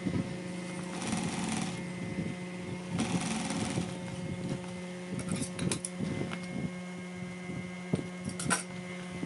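Industrial sewing machine with a steady motor hum, running in two short bursts of stitching along a vinyl edge, then a few sharp clicks and a scissor snip near the end.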